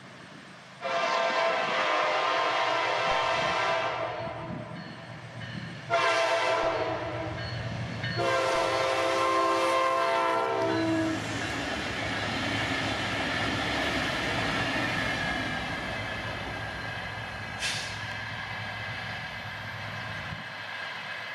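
Four Wabtec ES30ACi diesel-electric locomotives running together sound their multi-tone air horn in a long blast, a short blast and another long blast whose pitch sags as it cuts off, the warning pattern for a grade crossing. The locomotives then rumble past with engine and wheel noise on the rails.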